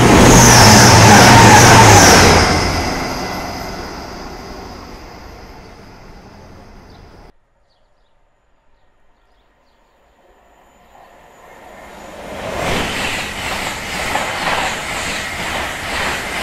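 Train passing close by, loud at first with a high steady tone over the rumble, fading away and then cutting off abruptly about seven seconds in. After a few seconds of near silence, another train approaches with a rhythmic clatter of wheels on rails.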